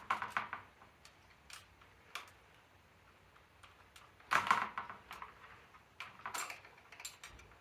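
Small metal tools and bike parts clicking and clinking in short scattered bursts while a bracket screw is worked with the small supplied hand tools; the loudest burst comes about four and a half seconds in.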